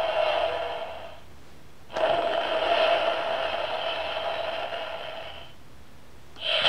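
Recorded sound effects played through the small speaker of a children's sound book's button panel, one press after another. One effect fades out about a second in, a second starts abruptly about two seconds in and fades out after about three and a half seconds, and a third starts just before the end.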